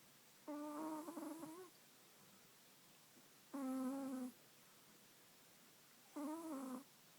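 Chihuahua snoring in its sleep: three short, high-pitched snores, one with each breath, about every three seconds.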